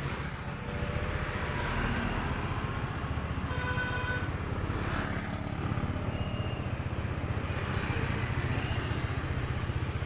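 Motor scooter engine running steadily at low speed, a low rapid pulsing, heard from the rider's seat.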